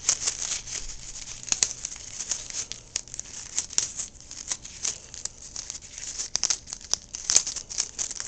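Tape being peeled off the roll and torn, with paper crinkling as it is handled: a run of irregular crackles and rips.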